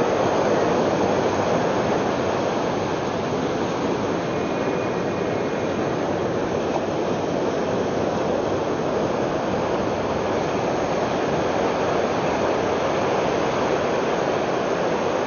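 Sea surf breaking and washing up the beach, a steady rushing noise with no distinct crashes.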